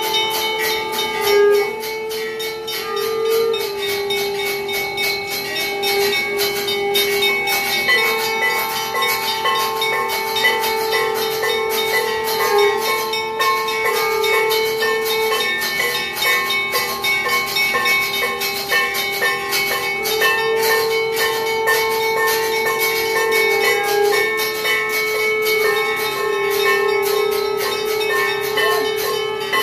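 Hindu temple bells ringing continuously with rapid strikes during the aarti lamp-waving, layered with a steady held tone that shifts pitch every few seconds.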